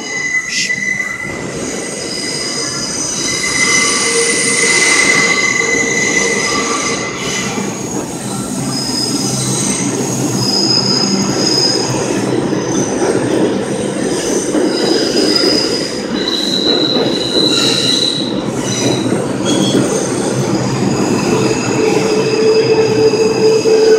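Bombardier R142 subway train pulling into the station alongside the platform: a steady rumble of wheels on rail with high wheel squeals that come and go, loud throughout.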